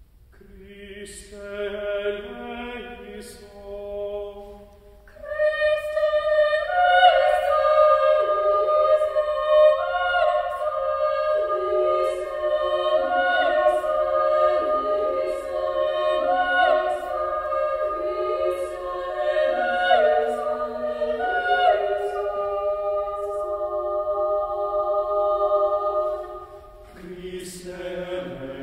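Mixed chamber choir singing a slow, sustained choral passage. It starts soft and swells, then about five seconds in the full choir comes in louder. The upper voices hold a long chord while a lower part steps down and back up in a repeating figure. Near the end it drops to a softer passage in the lower voices.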